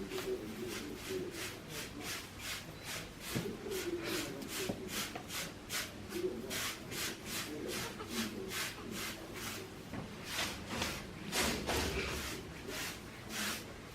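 Mother goat licking her newborn kid: a steady run of short, wet rasping strokes, about three a second.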